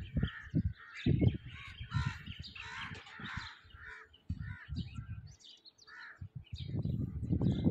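Crows cawing among other birds chirping, many short calls overlapping. Under them come irregular bursts of low rumble from wind on the microphone, heavier near the end.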